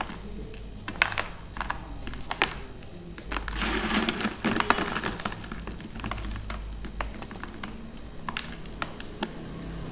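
Broken chunks of pressed baking soda being crunched: a few sharp cracks, then a dense crumbling crunch a few seconds in, then more scattered crisp cracks.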